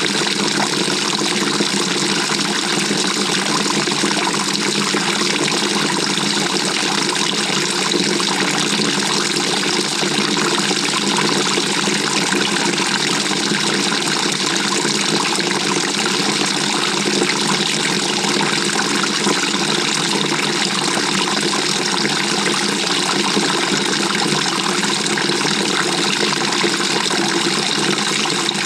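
Water rushing and splashing in the tub of a 2018 GE GTW220ACKWW top-loading washing machine, heard from inside the drum: a steady, unbroken wash of water noise.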